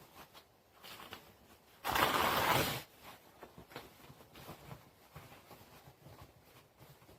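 Packaging being handled while a guitar is unboxed: light rustling and small clicks, and one loud rip about two seconds in, lasting just under a second.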